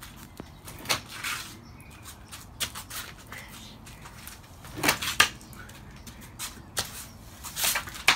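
A long-handled brush knocking and scraping against a wooden shed with a felt roof: scattered sharp knocks, the loudest a close pair about five seconds in.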